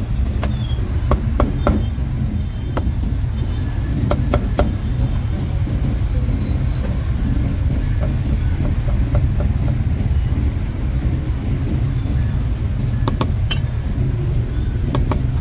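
Meat cleaver chopping pork on a thick wooden chopping block, heard as scattered sharp knocks in a few short clusters, over a steady low rumble of road traffic.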